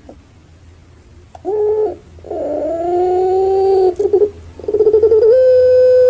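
Puter pelung dove (Barbary dove, Streptopelia risoria) cooing: a short note about a second and a half in, then a long held coo, then a quick stutter that leads into a long, steady drawn-out note near the end.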